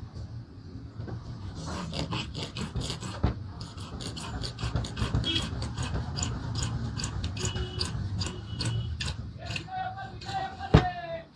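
Hand file rasping across thin wooden strips held in a bench vise, a quick run of repeated strokes. Near the end there is a brief ringing tone and then a sharp knock.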